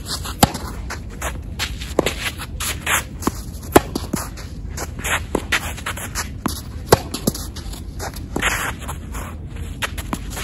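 Tennis rally: sharp racket strikes and ball bounces every second or so, with tennis shoes scuffing and shuffling on an artificial grass court.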